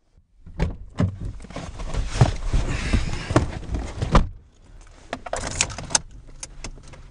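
Clunks, rustling and jangling keys inside a car cabin as the driver tries to start a car that won't start. The loudest stretch, with several sharp knocks, runs through the first four seconds. Quieter clicks follow.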